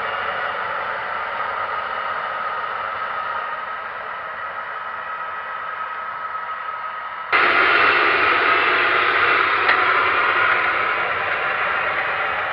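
John Deere 7530 tractor's six-cylinder engine running under load while pulling a seed drill, heard as a steady hissing rush without clear engine beats. About seven seconds in the sound jumps abruptly louder and brighter at a cut, with the tractor close by.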